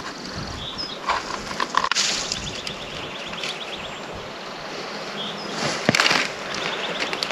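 Rustling and crackling of brush and gear being handled, with scattered clicks and two louder crackles about two and six seconds in, and a few faint bird chirps.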